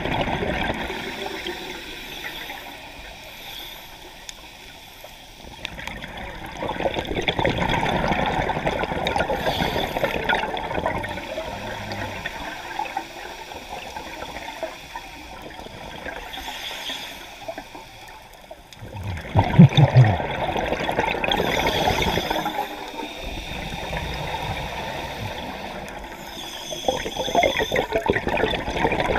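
Underwater scuba breathing: a diver's exhaled bubbles from the regulator rushing and gurgling in spells several seconds long, with quieter stretches between breaths. The loudest burst of bubbling comes about two-thirds through.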